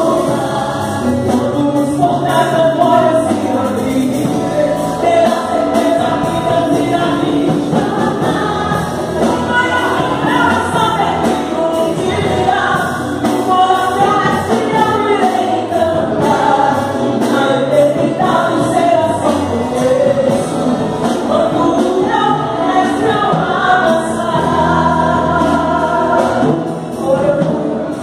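Live gospel worship song: a woman's lead voice sung into a microphone with backing singers, over a band of electric guitar, bass, congas and drums.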